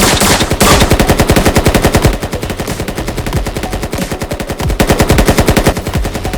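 Rapid automatic gunfire, about a dozen shots a second, sustained with a slightly weaker stretch in the middle.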